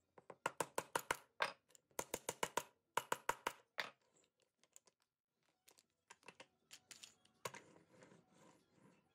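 Quick runs of sharp wooden clicks and clacks as the hardwood leg pieces and pins of a wooden automata toy dog are handled and fitted. About seven seconds in there is a knock, then a rough rattle as the toy is run along the wooden bench on its wheels.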